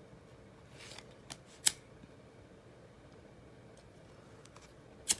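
A few sharp clicks from a BIC pocket lighter being struck, with a brief scrape of the spark wheel before the first ones. The loudest click comes about a second and a half in and another near the end. The lighter is being used to heat-seal the edges of satin ribbons so they fuse together.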